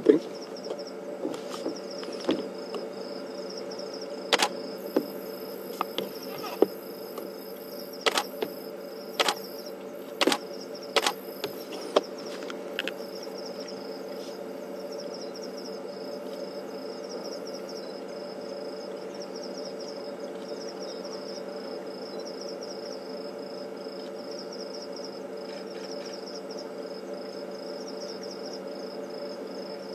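Night insects such as crickets chirring in a steady pulsing high trill over a low steady hum. About a dozen sharp clicks at irregular intervals sound through the first half, then stop.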